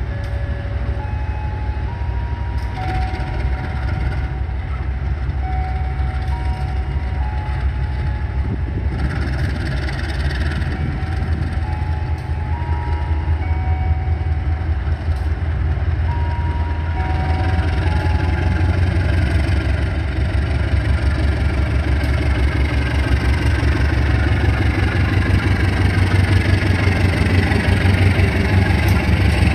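Diesel-electric locomotive engine running with a steady low rumble, getting louder over the last several seconds as a higher whine comes in.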